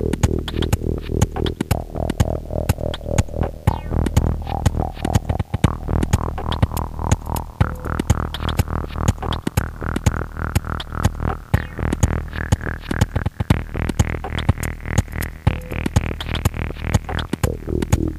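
Minimal electronic dance music: a steady low synth bass hum under fast, dense drum-machine clicks, with a synth sound that sweeps slowly upward in pitch and then drops away near the end.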